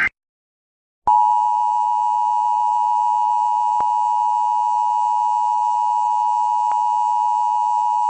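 Emergency Alert System attention signal: a steady two-tone electronic tone just under 1 kHz, starting about a second in and holding at an even level.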